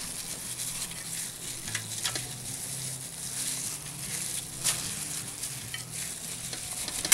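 Soft scraping and a few light clicks as spice paste is smeared from a glass dish over a whole fish on a wire rack, over a faint steady hiss.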